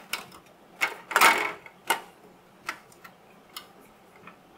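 Plastic interior door panel of a model car kit being handled and pushed into place under the metal door sill: several sharp clicks and one longer, louder scraping rustle about a second in.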